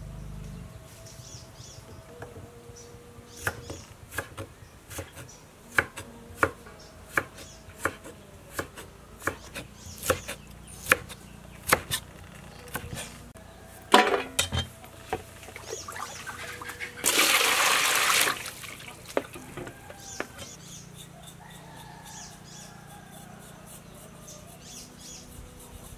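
Cleaver chopping pale lotus stems on a wooden cutting board: a string of sharp knocks, about three every two seconds, with the loudest about fourteen seconds in. About a second of rushing hiss follows a few seconds later, then only faint knocks.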